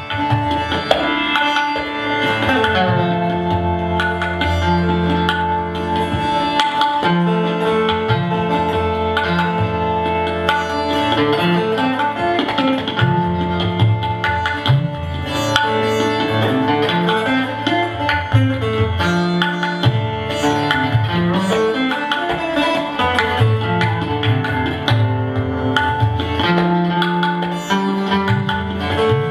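Instrumental Indian-style background music: a plucked string instrument playing over a steady drone, with hand drums keeping a rhythm.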